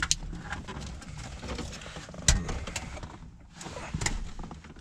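Scattered clicks and knocks of plastic wiring connectors and a car stereo head unit being handled, as the wiring harness is plugged into the radio. The loudest knock comes a little over two seconds in.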